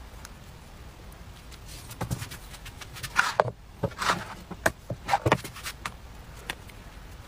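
A run of knocks and clicks with a few short hisses as a dip-style electric crepe maker is lifted, dipped into a dish of batter and set back down. The sounds bunch between about two and five and a half seconds in.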